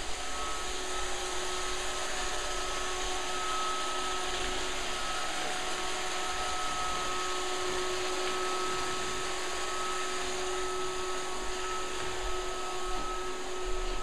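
iRobot Roomba robot vacuum running: a steady whir of its motor and brushes with a constant whine.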